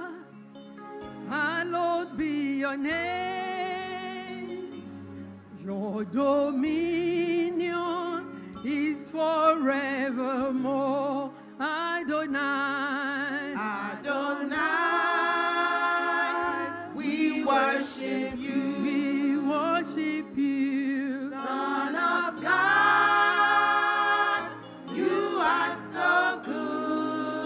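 Gospel worship song: a singer with a wide vibrato carries the melody over held low accompaniment notes.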